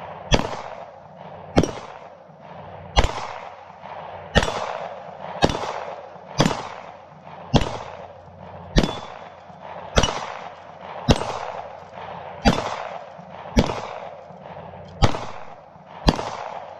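SAR9 9mm semi-automatic pistol fired in slow, steady succession, fourteen shots about one every second and a bit, each crack trailing off in an echo. This is the first magazine of 15 rounds through the pistol, run dry.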